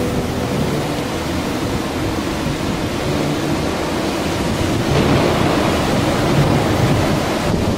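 Steady, even rushing noise of water, growing slightly louder about five seconds in.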